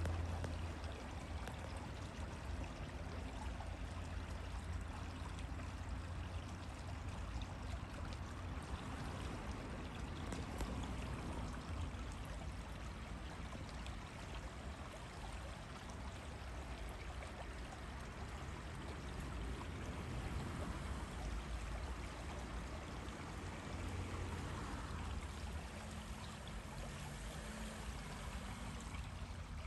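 Steady rushing of running water, with a low rumble underneath.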